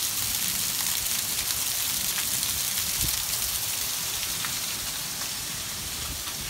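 Torrential rain pouring down steadily, a dense hiss that eases a little in the second half.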